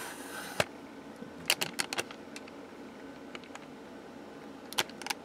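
Clicks and knocks of a camera being handled and lowered to a new position: one click about half a second in, a quick cluster of clicks a second later, and two more near the end, over a faint steady background hum.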